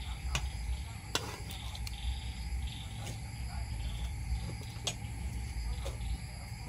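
Pestle pounding lemongrass, chilies and salt in a mortar, giving scattered knocks a second or two apart, with crickets chirping steadily behind.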